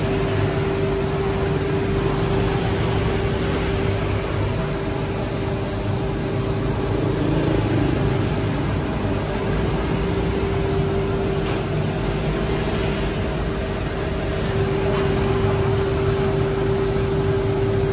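A steady mechanical hum holding one constant tone, over an even hiss and low rumble.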